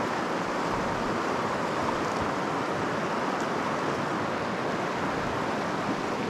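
River water running steadily over a low, shallow riverbed: an even rushing with no breaks.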